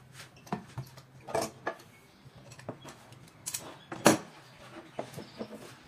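Scattered knocks and clatter of cut white laminated board pieces being handled and shifted on a wooden worktable, the loudest knock about four seconds in.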